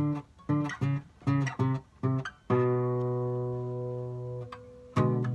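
Guitar strumming: a run of short, choppy chord stabs, then one chord left ringing and fading for about two seconds, with strumming picking up again near the end.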